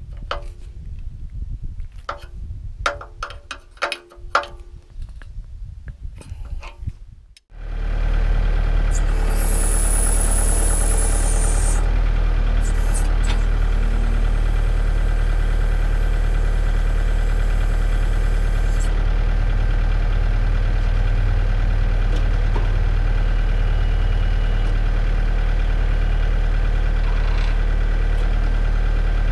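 Wrenches clinking on hydraulic hose fittings as they are tightened, then, about seven seconds in, a Kubota L4701 tractor's diesel engine running steadily while the BH92 backhoe is cycled through its range of motion to work air out of the lines and check for leaks. A high whine rises over the engine for a few seconds shortly after it comes in.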